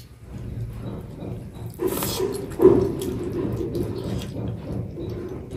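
Close-miked wet chewing and lip-smacking as a cooked chicken wing is bitten and torn apart by hand, with two louder bites about two seconds in.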